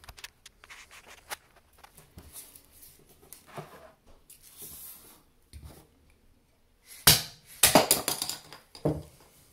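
A small mallet knocking a plastic tile-leveling spacer post to snap it off at the base, heard as a quick cluster of sharp knocks about seven seconds in, the first the loudest. Faint clicks of the plastic parts being handled come before.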